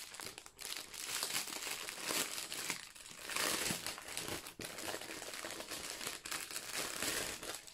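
Clear plastic packaging crinkling as a bag of bagged diamond-painting drills is handled and pulled open, busiest about three and a half seconds in.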